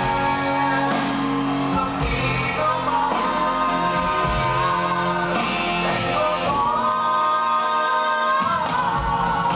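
A man and a woman singing a duet live with a band of drums and guitar, holding long sung notes.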